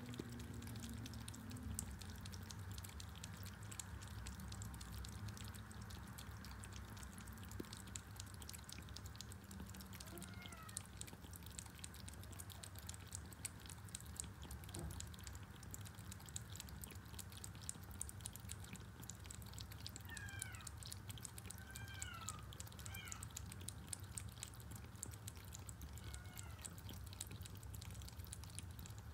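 Two kittens lapping water from a bowl: a fast, faint run of tongue clicks. A few short, faint kitten mews come about ten seconds in and again between twenty and twenty-six seconds in.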